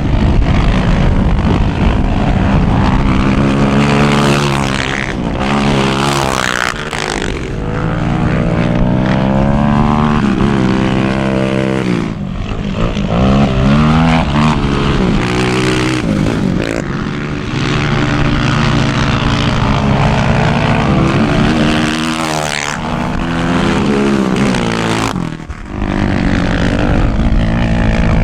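Off-road quad engines revving up and down over and over, their pitch climbing and falling with the throttle, with a brief drop in level about 25 seconds in. Strong gusty wind rushes behind them.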